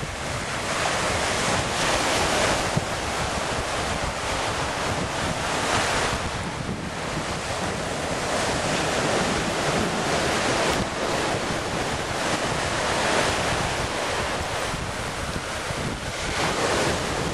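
Ocean surf breaking and washing up a beach, swelling and easing every few seconds, with strong wind buffeting the microphone.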